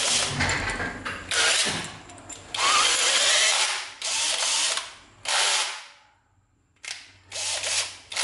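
National cordless drill run in about seven short bursts, each a second or less, with brief gaps between.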